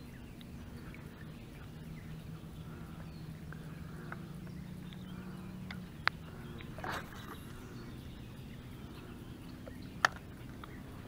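Quiet lake ambience heard from a kayak: faint bird calls over a low steady hum. Two sharp knocks about four seconds apart, the second the louder, with a brief rustle between them.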